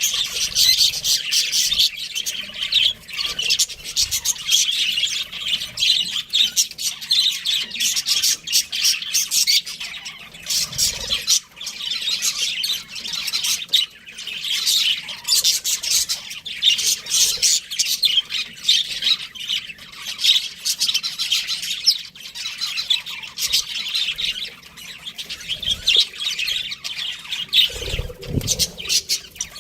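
Pair of budgerigars chattering nonstop, a fast stream of high chirps and squawks.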